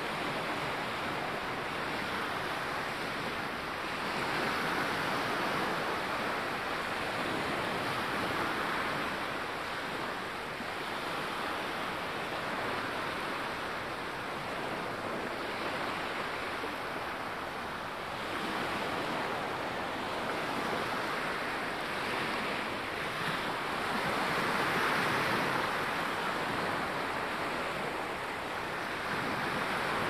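Small waves washing up and running back over a sandy shore, a steady hiss of surf that swells and fades every few seconds.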